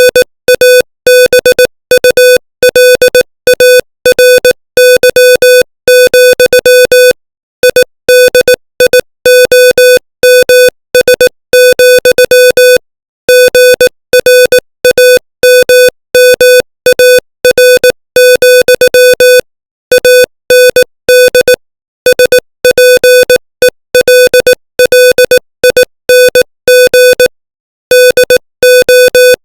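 Morse code at 18 words per minute: a single steady tone keyed on and off in short dots and longer dashes, with a few longer silent gaps between groups.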